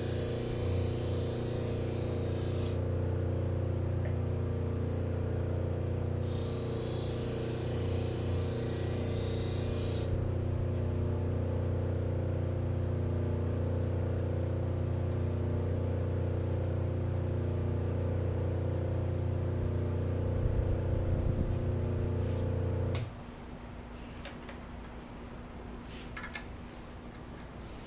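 Grinder with CBN sharpening wheels running with a steady hum. Twice a knife blade is ground on the wheel, each time a hiss lasting about three seconds. The hum cuts off suddenly about 23 seconds in, and a few faint clicks follow.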